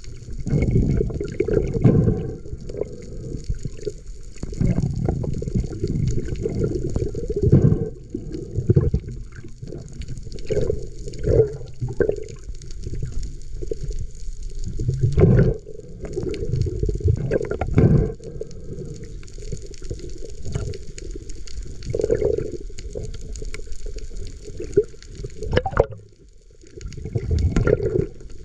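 Muffled water sloshing and bubbling, picked up by a camera in the water during a spearfishing dive, in irregular surges with a few louder gushes.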